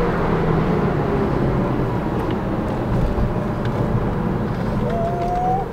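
Porsche 911 Carrera S (997) 3.8-litre flat-six heard from inside the cabin at low revs, with steady tyre and road noise as the car rolls slowly. A brief faint rising tone comes in near the end.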